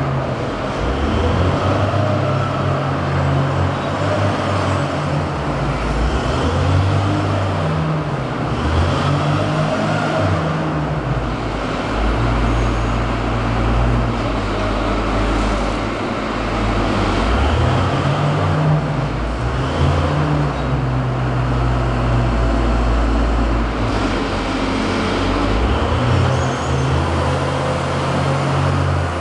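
Wheel loader's diesel engine running throughout, its speed rising and falling every few seconds as the machine drives and works its cotton bale clamp.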